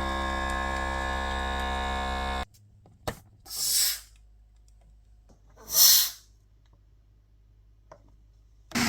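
Background song that cuts off about two and a half seconds in. Then a click and two short puffs of hissing air, the second louder, like a vacuum food container's pump lid being pressed to draw the air out, with a faint click near the end.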